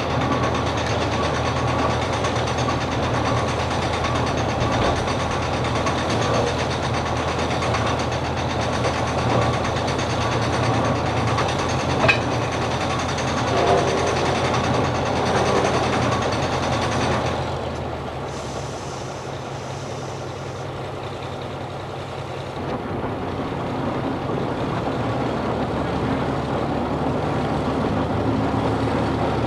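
Heavy diesel engine running steadily. A single sharp knock comes about twelve seconds in. The engine falls off to a lower level a little past halfway and builds again near the end.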